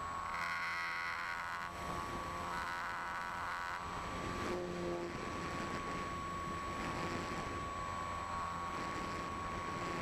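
E-flite Apprentice's electric motor and propeller whining steadily in flight, heard from an onboard camera with wind noise over it; extra higher tones join briefly near the start.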